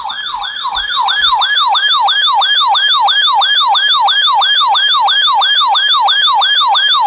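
Electronic siren-like alarm tone: a loud, rapidly repeating falling sweep, about three and a half sweeps a second, that stops abruptly.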